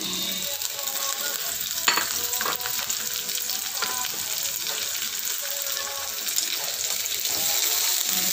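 Sliced bitter melon (ampalaya) and onion sizzling as they fry in oil in a small wok: a steady hiss, with a few sharp clicks as the pieces are stirred with chopsticks.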